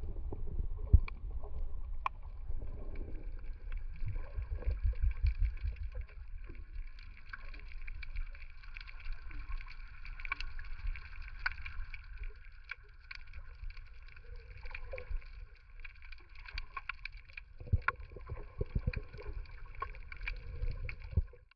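Underwater sound picked up by a camera in its waterproof housing: a low rumble of moving water that swells and fades, with many scattered clicks and crackles and a faint steady hum.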